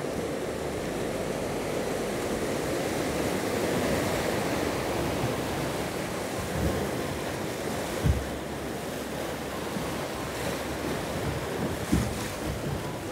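Whitewater rapid rushing steadily, with wind buffeting the microphone and a few short low thumps, the clearest about two-thirds of the way through and near the end.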